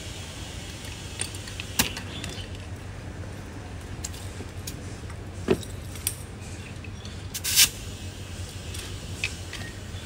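Metal hand tools from a tyre plug kit clinking and clacking as they are handled and set down, a handful of separate sharp clicks with a louder short clatter near the end, over a steady low hum.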